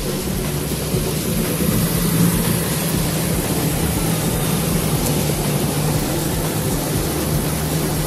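A car engine running at high speed with a steady low drone, under a constant rush of tyre and wind noise as the car is driven fast over sea ice.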